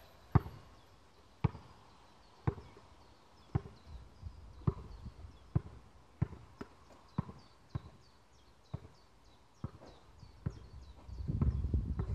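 A basketball bouncing on a synthetic outdoor court: about a dozen single thuds, roughly one a second, as in a slow dribble.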